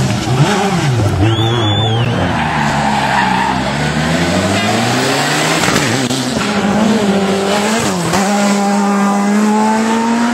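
Rally car engine revving up and down hard through gear changes, with a brief tyre squeal about a second in. Near the end it settles into one steady climb in pitch as the car accelerates.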